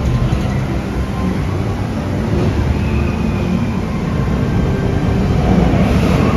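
Steel roller coaster train rolling along its track out of sight, a steady loud rumble with faint high wheel tones above it.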